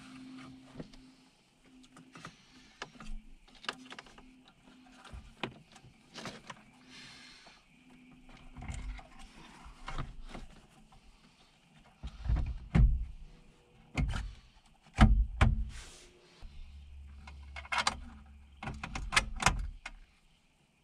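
Handling noises from refitting a car stereo head unit and its plastic trim into a dashboard: a string of clicks, taps and knocks, with a run of heavier thumps a little past halfway.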